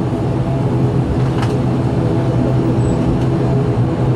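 Steady drone of the ATR 72-500's Pratt & Whitney Canada PW127 turboprop and its spinning propeller, heard inside the cabin right beside the engine, with a deep hum under it. A faint click or two rises above it.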